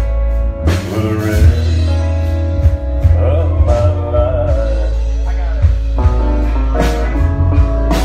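A live band playing loud amplified music: electric bass, electric guitar and drum kit, with cymbal crashes about every two seconds over a heavy bass line.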